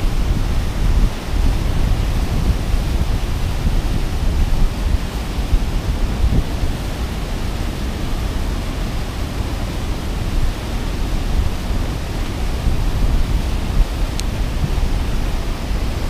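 Steady rushing noise of churning white water, with wind rumbling on the microphone. There is one light click about fourteen seconds in.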